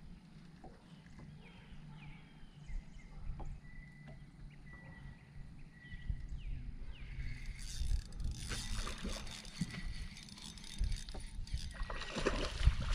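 Water lapping and sloshing against a bass boat's hull over a low steady hum, turning into a rougher, louder wash in the second half.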